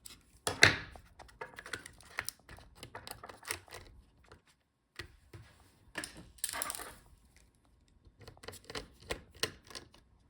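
Small clicks and light knocks of laptop parts and tools being handled on a bench, as the I/O board is taken out, with a louder knock just under a second in and a short scraping sound around six seconds.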